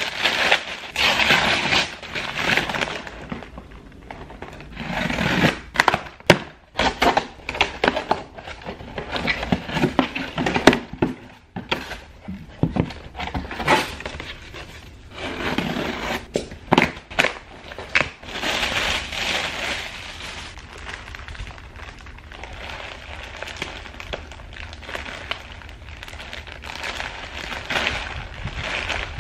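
Delivery packages being torn open and handled: crinkling plastic and paper wrapping, tearing, and scattered sharp knocks and clicks.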